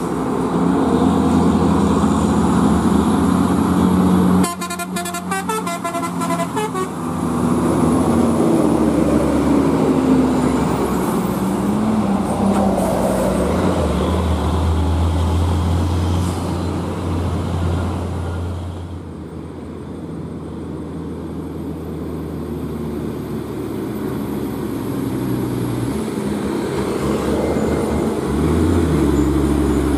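Heavy diesel trucks driving past, their engines running, with a vehicle horn tooting.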